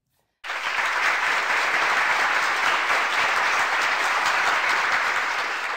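Applause, a crowd clapping, starting abruptly about half a second in and tailing off near the end.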